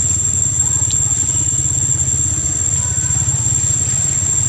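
An engine idling steadily nearby: a low, even rumble under a constant thin high-pitched tone.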